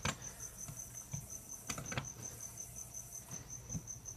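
Cricket chirping steadily, about four chirps a second, with a few faint clicks from screwdriver work on the hard drive case, the plainest near the start and about two seconds in.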